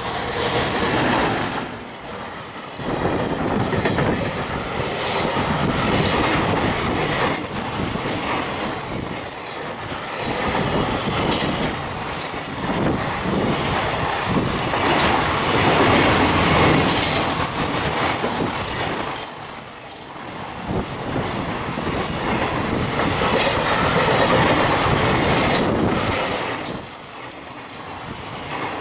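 EF210 electric freight locomotive passing close by, followed by a long train of container wagons rolling past: a steady, loud rumble of steel wheels on rail with a rhythmic clatter over the rail joints.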